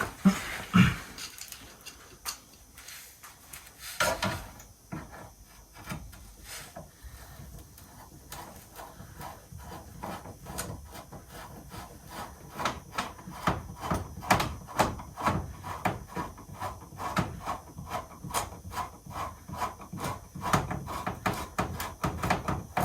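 Screwdriver driving a screw by hand into a freshly drilled pilot hole in a car's front splitter: scattered knocks and scrapes, then a long run of quick, repeated clicks and rubbing as the screw is turned.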